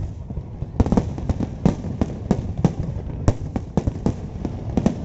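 Fireworks display: aerial shells bursting in quick, irregular succession, about three sharp bangs a second over a continuous low rumble.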